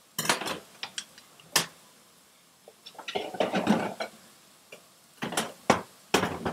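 Kitchen utensils and dishes clinking and knocking at a sink: a series of separate sharp clicks, with a denser clatter about three seconds in.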